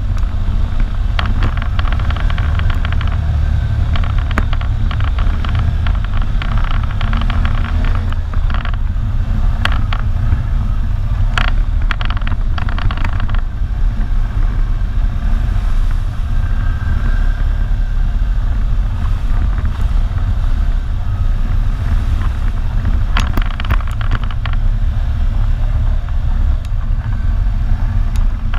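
ATV engine running steadily as it rides a rough dirt trail, with spells of rattling and clatter from the machine and the ground.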